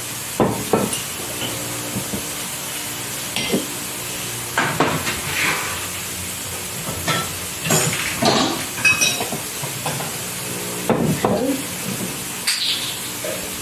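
Glass bottles and kitchen utensils knocking and clinking at irregular moments as bottles are handled and set down, over a steady hiss.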